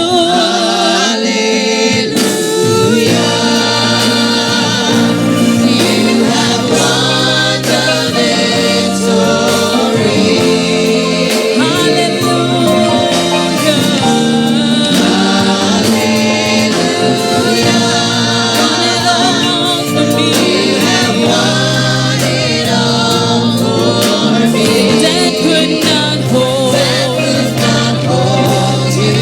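Gospel worship music: a group of voices singing with sustained low instrumental notes underneath.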